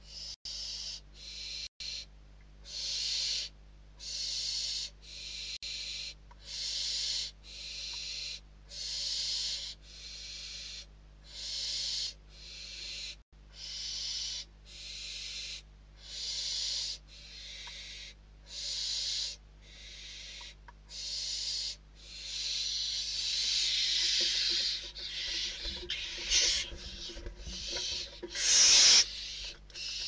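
Barn owl chicks giving their rasping, hissing food-begging calls, about one a second. From about two-thirds of the way through, the calls run together and grow louder, with scuffling and the loudest rasp just before the end, as an adult owl reaches the nest entrance.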